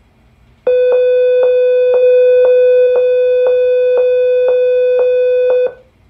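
Sensormatic anti-shoplifting alarm, the store-exit alarm triggered by a security tag that has not been deactivated. A loud, steady electronic tone pulses about twice a second for about five seconds, starting just under a second in and cutting off suddenly.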